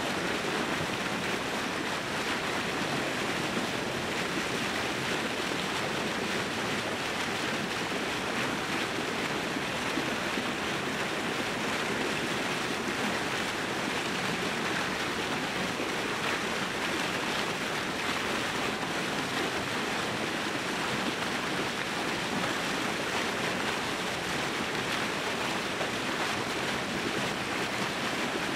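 Steady rushing and splashing of open water churning against the edge of the ice.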